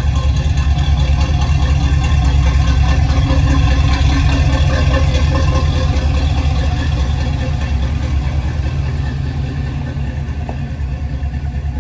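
Chevrolet 350 small-block V8 of a 1976 K10 pickup running at low speed as the truck pulls out, getting quieter in the last few seconds as it moves off.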